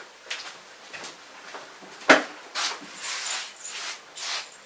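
A sharp knock or click about two seconds in, then soft rustling and shuffling as a person walks into the room.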